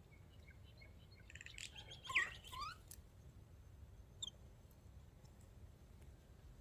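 Birds chirping: a flurry of short calls about one and a half to three seconds in, the loudest a quick falling call, then a single brief chirp a little after four seconds.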